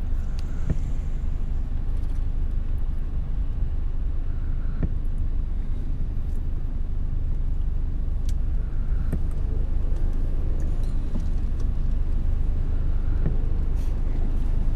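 Steady low road rumble of a car being driven, heard from inside the cabin: engine and tyre noise.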